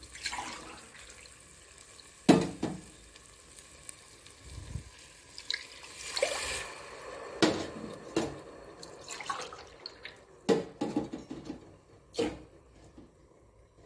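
Water poured from a steel tumbler into a steel pressure cooker onto rice, splashing into the pot, with several sharp metal knocks against the cooker.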